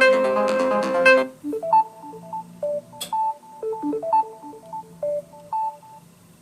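Samsung Galaxy S20 stock ringtones: a dense, busy melody ends about a second in, and a sparser tune of short, clear electronic notes follows, with a faint low hum under it and a single click about three seconds in.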